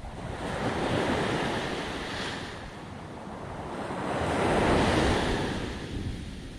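Small sea waves breaking and washing up a sandy beach, two swells of surf: one about a second in and a louder one around five seconds. Wind buffets the microphone as a steady low rumble underneath.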